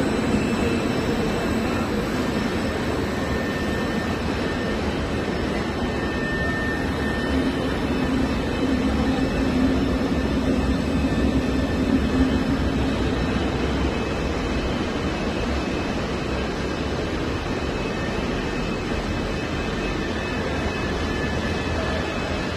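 Rubber extrusion and microwave vulcanization production line running: a steady machinery noise with a few faint, constant high whines over it.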